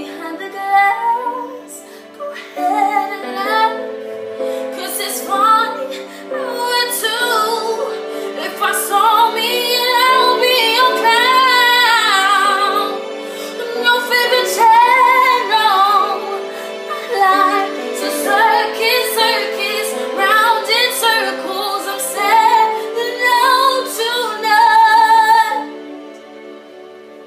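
A teenage girl singing a slow soul ballad solo, with long held and bending notes over steady held chords underneath. The singing stops about 26 seconds in.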